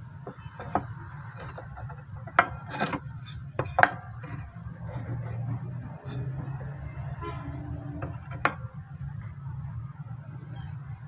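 Blocks of wood handled and knocked against the metal table and fence of a miter saw: a few sharp clacks, the loudest about two and a half and four seconds in, over a steady low hum.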